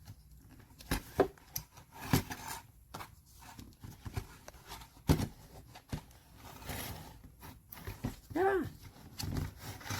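Scattered plastic clicks and knocks as the head of a small rechargeable fan is tilted by hand on its pivot, which is still stiff because it is new.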